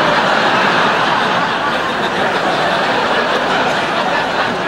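Studio audience laughing, loud and sustained, easing off slightly near the end.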